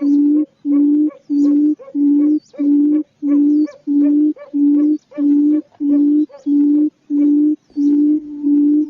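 Quail calling: a steady string of identical short, low hooting notes, just under two a second, with faint high chirps of other birds in the background.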